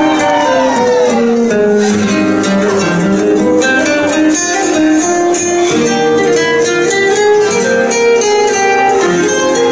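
Tamil film-song music playing loud, an instrumental passage whose melody steps through short notes, with a falling glide near the start.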